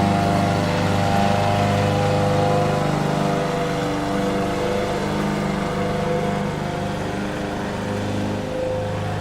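Petrol lawn mower engine running steadily, its note wavering slightly now and then.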